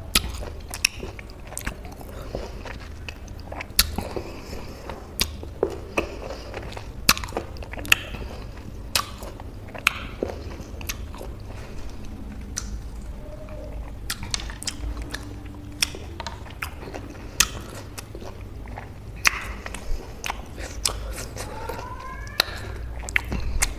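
Close-miked chewing of juicy citrus fruit, with sharp wet mouth smacks and clicks roughly once a second.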